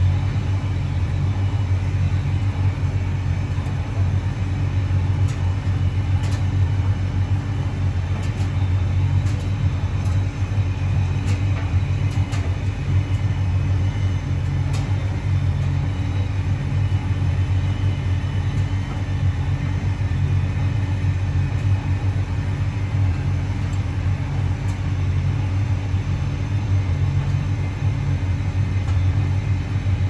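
Hotpoint Reversomatic 9327 vented tumble dryer running on its low heat setting: a steady, low rumble from the motor and turning drum.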